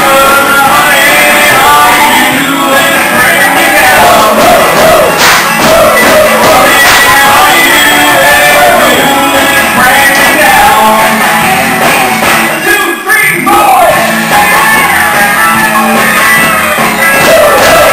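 Loud upbeat dance song with a singing voice, played for a line dance; the music drops out for a moment about thirteen seconds in.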